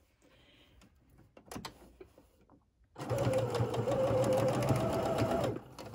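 Sewing machine running a straight stitch along a shirt hem: a steady whirring hum with rapid needle strokes. It starts about halfway through and stops abruptly near the end, after a few faint clicks of handling.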